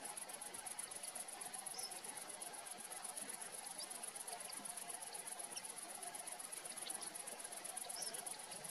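Crickets in the grass chirring steadily in a high, rapidly pulsing drone, with a few short high chirps scattered through.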